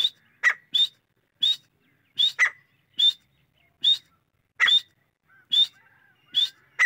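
Grey francolin calling: a series of loud, sharp notes, about two a second, many ending in a quick upward flick.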